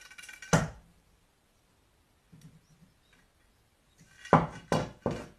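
Wooden snap mousetrap struck with a stick to spring it: a single sharp knock about half a second in, then three hard clacks in quick succession near the end.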